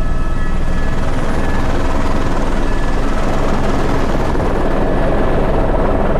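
Helicopter running in flight, heard from inside the cabin: a steady, loud din of rotor and engine with a few constant whining tones over it.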